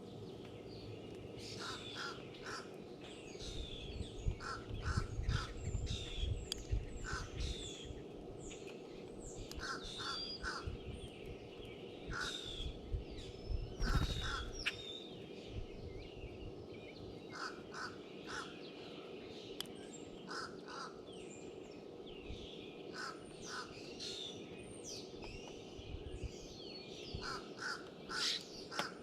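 Wild birds calling and chirping around a tray feeder, many overlapping short calls, with one bird repeating a short call in groups of two or three. Low rumbling bumps come near the microphone, strongest around five seconds and fourteen seconds in.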